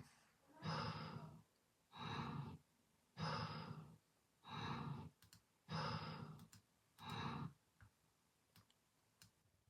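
Snoring: six rhythmic, buzzing snore breaths about a second apart, which stop about three-quarters of the way through, followed by a few faint clicks.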